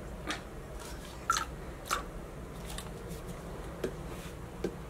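Meat injector being filled with marinade from a mug: about five short squishy, sucking clicks as the plunger draws liquid and the needle knocks in the mug, the loudest about a second in.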